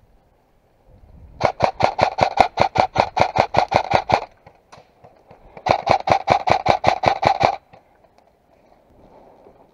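Airsoft rifle firing two full-auto bursts of evenly spaced shots, about seven a second: a longer burst of about three seconds, then after a short pause a burst of about two seconds.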